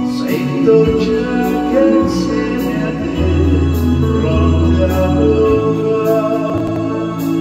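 A man singing into a handheld microphone over a pop backing track with held keyboard notes and a bass line.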